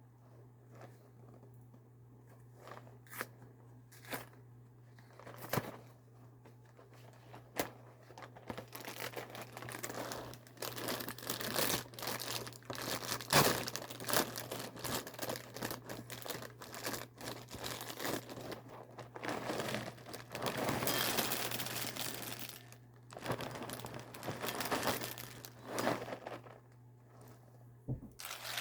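A few handling clicks and taps, then from about eight seconds in a long stretch of plastic crinkling and tearing: a cereal box's inner bag being torn open and handled.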